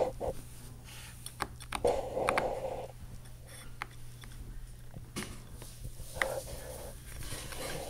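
A cat batting a small wooden spoon around a woven fabric chair seat: scattered light taps and clicks of spoon and claws on the weave, with a longer scratchy rustle about two seconds in and another shorter one near the end.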